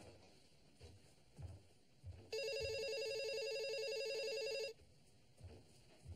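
Telephone ringing: one warbling electronic ring of about two and a half seconds, starting about two seconds in.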